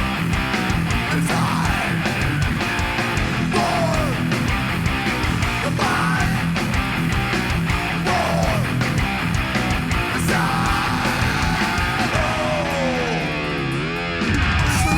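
Live heavy rock played by a three-piece band: electric guitar, bass guitar and drums, with notes gliding up and down in pitch over the top and a long downward swoop near the end.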